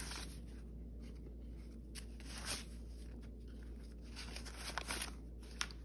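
Paper dollar bills rustling in the hands as a stack of cash is handled and put back into a binder cash envelope, in a string of short crisp rustles and flicks.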